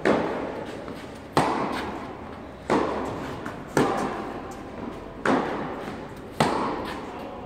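Tennis balls struck by rackets in a steady baseline rally, six sharp cracks about a second and a quarter apart. Each one echoes and fades through the large indoor hall.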